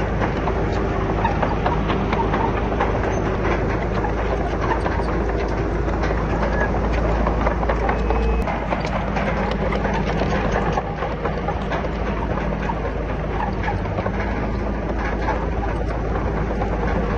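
Komatsu D31PX crawler bulldozer's diesel engine running steadily under load, with its steel tracks clanking and rattling; the engine note drops a little about two-thirds of the way through.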